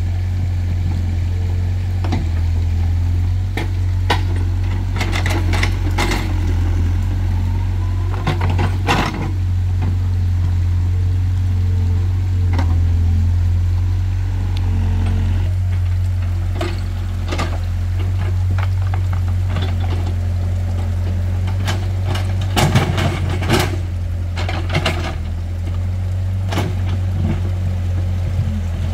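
Excavator engine running steadily under load, with repeated clanks and knocks as the bucket scrapes and pushes rocks; the loudest knocks come about 23 seconds in.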